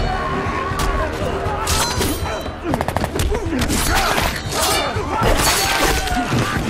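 Film fight sound effects: a rapid run of blows, thuds and crashes with something shattering, mixed with men's shouts and grunts.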